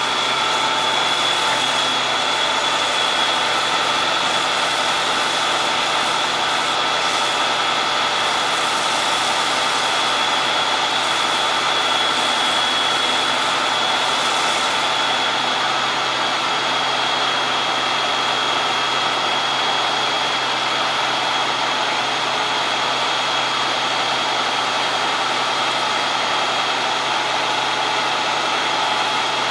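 Fire engine's diesel engine running steadily, with a steady high-pitched whine on top. A faint hiss above it eases about halfway through.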